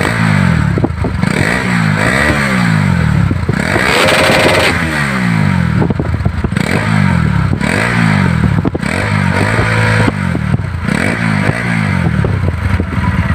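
Bajaj Pulsar NS200's single-cylinder engine revved again and again, about once a second, each blip falling back toward idle. Its stock exhaust pipe has been cut and a larger-bore pipe fitted, which gives the louder note.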